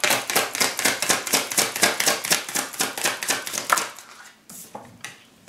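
A tarot deck being shuffled by hand: a rapid run of card slaps, about eight to ten a second, stopping after about four seconds, followed by a few faint taps.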